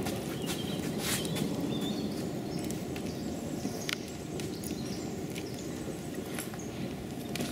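Outdoor campsite ambience: a steady low rushing noise with scattered sharp clicks, one clear one about four seconds in, and a few faint high chirps.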